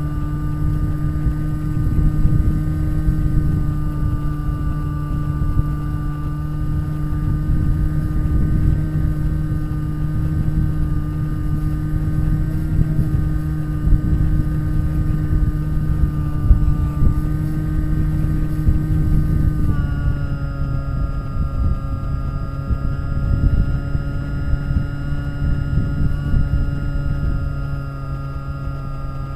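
Bixler RC glider's electric motor and propeller running steadily in flight, a steady whine with wind rushing over the microphone. About two-thirds of the way through, the motor tone steps slightly lower, a throttle change.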